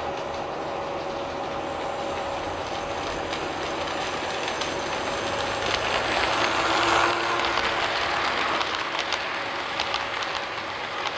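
Model train running along the layout's track, a steady rolling rumble with clicking from the wheels. It grows loudest as the locomotive and passenger cars pass close by about six to seven seconds in, then eases off.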